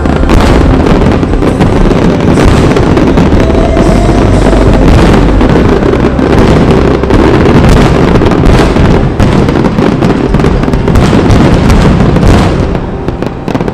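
Aerial fireworks in a dense barrage: rapid overlapping bangs and crackles over a deep rumble, easing off and getting quieter near the end.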